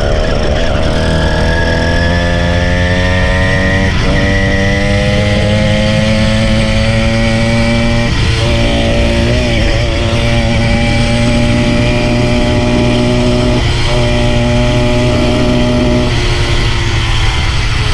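Motorised bicycle kit engine running hard under throttle as the bike is ridden, its pitch climbing over the first few seconds, dropping briefly about four and eight seconds in, then holding fairly steady.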